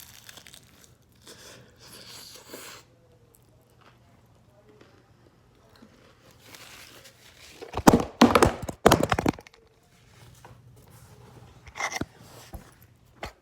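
Close-up mukbang eating sounds: crunching and crinkling of food and wrappers. The loudest part is a burst of crunching that starts nearly eight seconds in and lasts about a second and a half, with a shorter one near the end.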